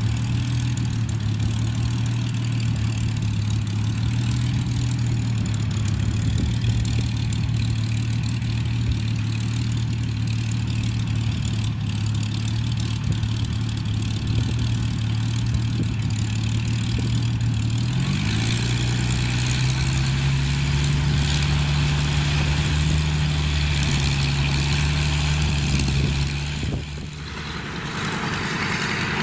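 Vintage piston aircraft engines running at low power on the ground, a steady low drone that rises to a higher steady pitch about 18 seconds in as the power is increased slightly.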